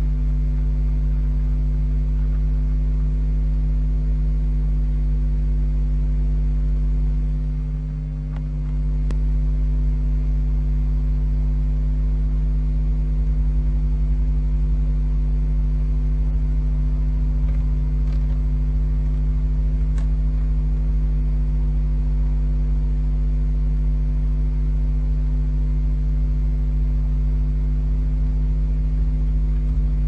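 Steady electrical mains hum with a stack of evenly spaced overtones on the nest-box camera's audio line. It dips briefly about eight seconds in, and a few faint clicks come through.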